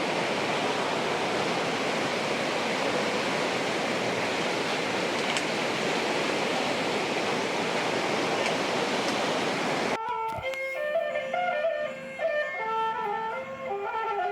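Steady rush of water flowing in a small stream. About ten seconds in it cuts off suddenly and instrumental music with a melody takes over.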